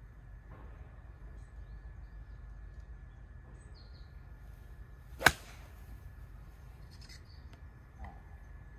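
A golf club striking the ball once, a single sharp crack about five seconds in, over a steady low outdoor rumble.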